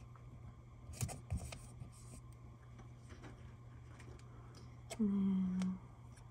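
Soft clicks, taps and rustles of paper sticker flakes being handled and pressed onto a planner page, with a couple of firmer knocks about a second in. A short hummed voice sound near the end.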